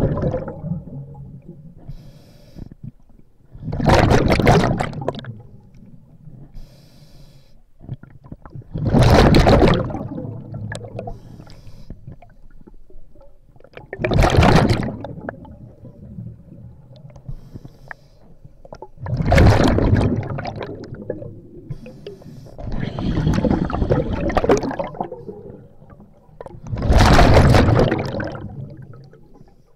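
Scuba diver breathing through a regulator, heard underwater: a loud rush of exhaled bubbles about every five seconds, with a faint hiss of inhalation in between.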